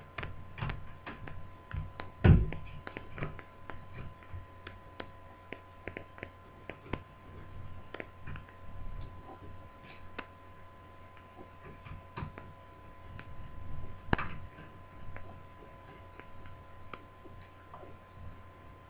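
Small irregular clicks and taps of a screwdriver and hands working on a laptop's plastic base while the speaker screws are undone, with a louder knock about two seconds in and another near fourteen seconds. A faint steady high tone runs underneath.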